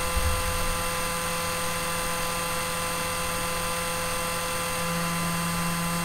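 3D printer printhead cooling fan running with a steady hum and whine. About five seconds in, the low hum gets louder as the nozzle comes down to touch the bed: the lower, louder buzz that marks Z = 0.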